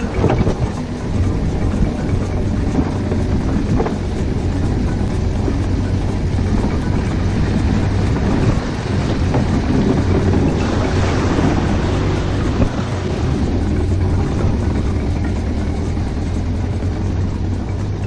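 Steady rumble and rattle of a karakat (homemade low-pressure-tyre ATV) rolling over a rough dirt track while towed behind a UAZ van, its own engine out of action from a carburetor fault.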